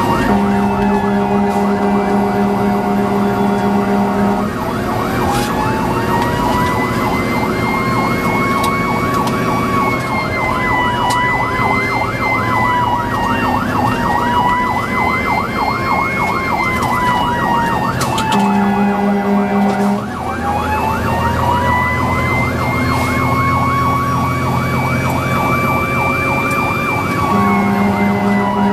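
Fire engine siren heard from inside the cab, winding up and wailing slowly up and down, broken by three long steady air-horn blasts: at the start, about two-thirds of the way through, and near the end.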